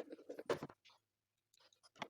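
Hands handling bread-maker parts: a quick run of small clicks and rattles with a louder knock about half a second in, a short pause, then a few more clicks.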